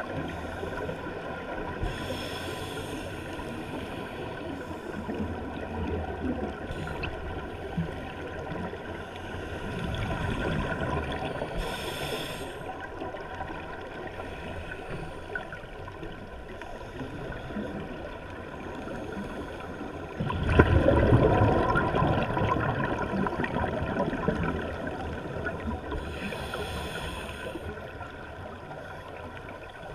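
Underwater sound of a scuba diver breathing through a regulator: a few short hisses of inhalation and gurgling bursts of exhaled bubbles, the loudest starting suddenly about twenty seconds in and lasting a few seconds, over steady underwater noise.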